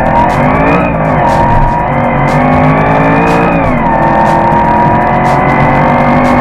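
Mercedes-Benz SLR McLaren's supercharged V8 accelerating: the engine note climbs, falls sharply about four seconds in, then runs at a steady pitch.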